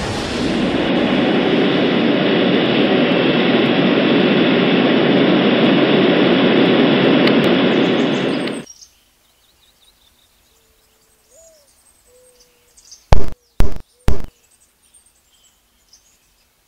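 A steady, loud rushing noise that cuts off abruptly about two-thirds of the way in, leaving faint bird chirps. Then come three loud knocks on a door, about half a second apart.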